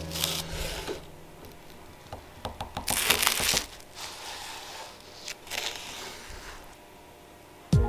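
Knife slicing through a baked puff pastry tart on a wooden board: the flaky crust crunches and crackles in several strokes, loudest about three seconds in, with a few light knocks of the blade.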